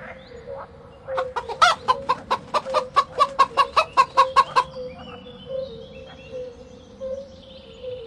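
Hen clucking in a quick, even run of about fifteen clucks, roughly four a second and growing louder. Faint high bird chirps follow.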